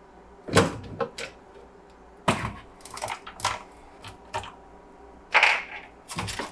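Irregular plastic clicks and knocks, about nine of them, from the inside parts of a refrigerator being worked loose and handled to get at the drain.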